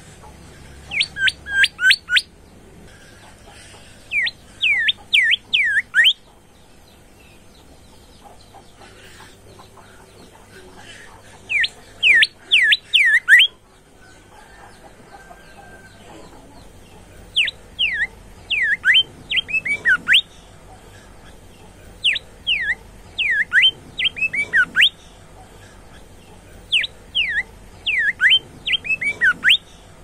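A caged bimoli (brown-breasted bulbul) singing: six short phrases of quick, downward-sweeping whistled notes, each phrase one to two seconds long, with pauses of a few seconds between them.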